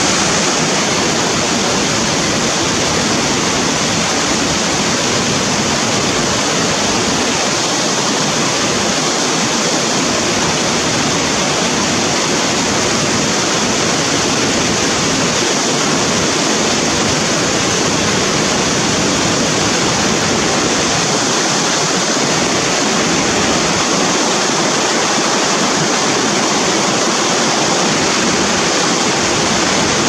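Mountain stream rushing over rocky cascades: a loud, steady rush of water.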